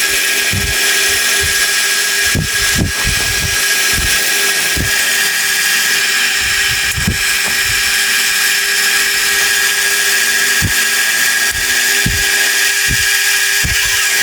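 A workshop machine tool running steadily while cutting a small steel part, with a steady high whine over a hiss and scattered low knocks.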